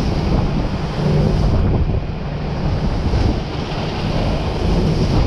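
Hurricane Ian's wind blasting across the microphone with driving rain: a loud, continuous rush that swells and eases slightly in gusts.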